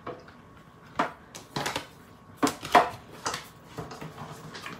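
Plastic embossing plates and a 3D embossing folder being set down and stacked on the platform of a Stampin' Cut & Emboss machine: about half a dozen sharp clacks and taps, the loudest near the middle.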